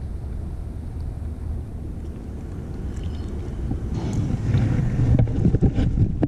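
Wind buffeting the microphone as a steady low rumble, with handling knocks and rustles growing louder over the last couple of seconds.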